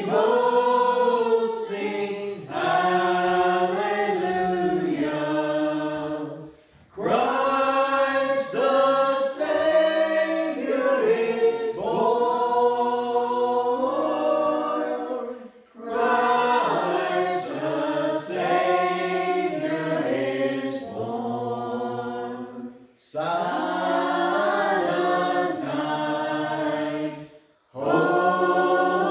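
Small mixed group of men, women and children singing a Christmas carol together, in sung phrases broken by short pauses for breath every several seconds.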